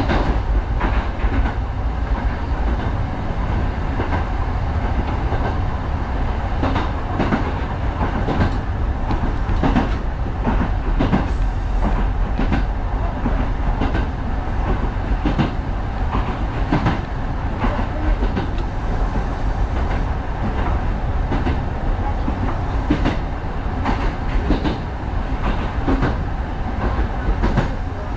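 Kintetsu 1010-series electric train running at speed, heard from aboard: a steady rumble of wheels on rail with irregular clacks as the wheels pass over rail joints.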